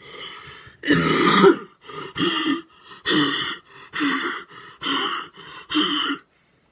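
A young man coughing hard over and over, a string of about seven loud, throaty hacking coughs roughly a second apart with smaller coughs between them, stopping shortly before the end.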